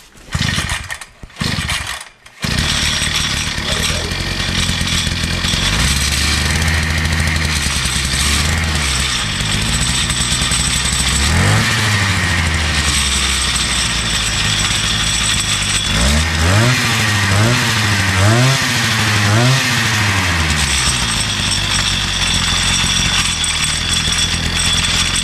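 GB Moto 50cc dirt bike's two-stroke engine, pull-started and catching about two seconds in, then running with loud rattling and chattering. It is revved once near the middle and blipped about four times in quick succession later on. The rattle comes from the engine being bolted straight to the metal frame with no rubber mounts, and the owner guesses the excessive chattering and banging is the failed clutch assembly flopping around.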